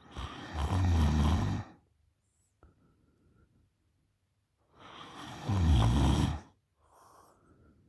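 A girl snoring loudly with her mouth open: two long snores about five seconds apart, each heavy in low rumble. A fainter breath follows near the end.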